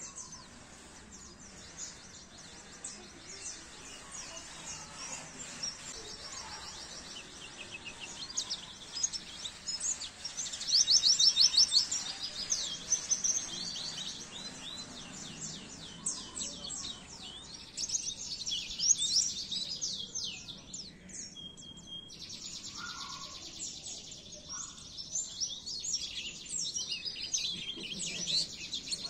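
White-eye (pleci) song: long runs of fast, high twittering trills and chirps, loudest about ten seconds in, with a short pause and a brief steady whistle a little past the middle.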